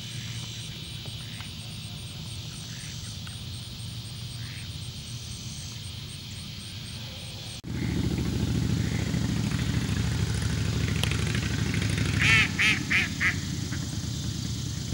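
Mallard quacking four times in quick succession, a little past the middle, over a steady low rumble. Before that there is only a low hum with a faint high rhythmic pulsing.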